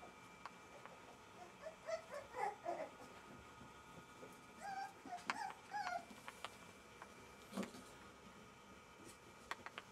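Jack Russell Terrier puppy whining in short, wavering high calls, in two runs: one about two seconds in and another about five seconds in. A few faint sharp clicks come in between.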